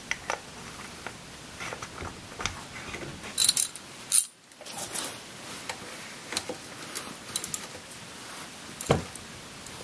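Scattered light metallic clicks and taps as the scooter's oil filter cover is fitted back under the engine and its bolts are turned with a small socket ratchet.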